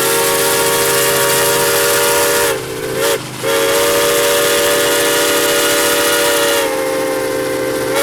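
Steam locomotive chime whistle blowing a long blast: a chord of several notes over heavy steam hiss. It breaks off briefly about two and a half seconds in, sounds again, and turns a little quieter for the last second or so.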